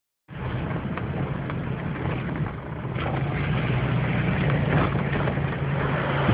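Steady hum of a car's engine and road noise, heard from inside the moving vehicle, with a few faint ticks.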